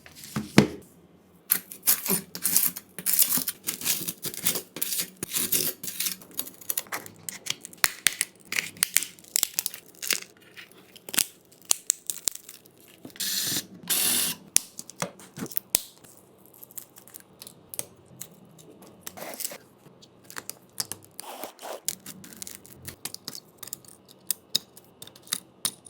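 Close handling of a smartphone being taken apart and worked on with small tools: a busy run of clicks, taps and scrapes, with a longer rasping stretch about thirteen seconds in.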